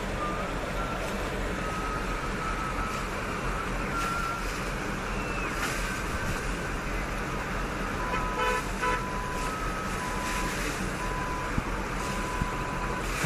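Steady rushing of a muddy flash-flood torrent, with car horns sounding over it: drawn-out wavering tones in the first half, a pitched honk about two-thirds of the way through, then repeated short toots.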